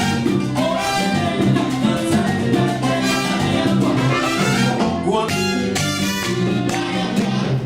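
Cuban salsa band playing live: an instrumental passage with a steady dance rhythm and no singing.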